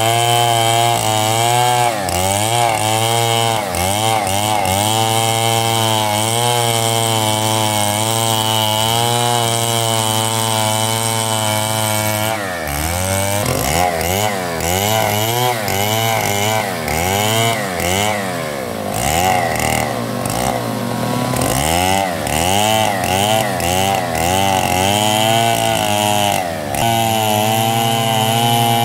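Two-stroke Stihl chainsaw ripping a log lengthwise into planks, running at high revs under load with its pitch wavering as the chain cuts. The engine speed drops briefly a few times, first about twelve seconds in.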